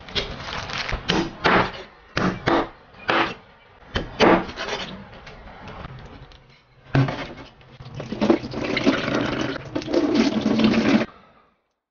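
Raw duck being handled in a stainless steel sink: a run of short rubbing and knocking sounds as it is set upright on a glass bottle. About seven seconds in, hot water is poured over the duck and splashes into the sink for about four seconds, then stops suddenly.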